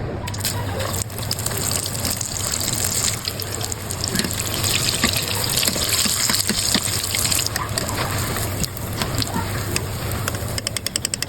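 Hot oil sizzling steadily with scattered crackles as potato balls deep-fry.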